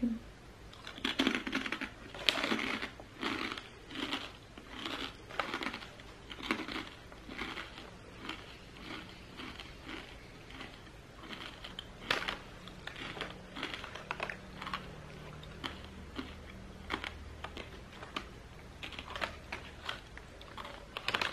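Crunching as crispy fried chicken skin is chewed: irregular crackles, dense at first and thinning out later, with one sharper crack about halfway through.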